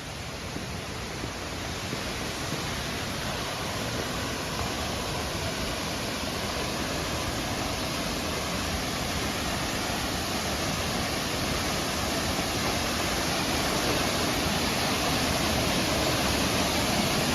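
Ayuya Falls: a steady rush of falling water that grows gradually louder.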